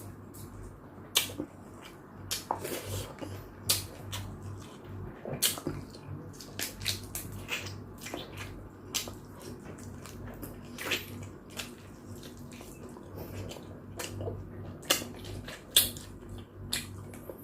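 Close-miked eating of chicken soup: wet slurping of broth and chewing, with many short smacks and clicks throughout.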